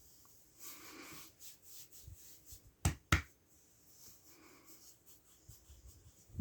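Two sharp clicks about a third of a second apart, roughly three seconds in, over quiet room tone with faint soft rustling.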